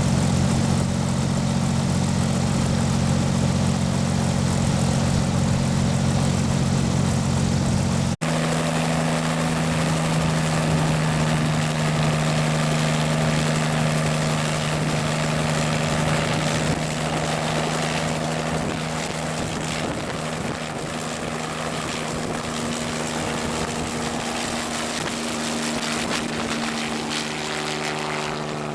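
Agricultural spraying helicopter running steadily, its rotor and engine giving a low, even hum. About eight seconds in the sound breaks off for an instant and resumes at a slightly different pitch, then eases a little in loudness.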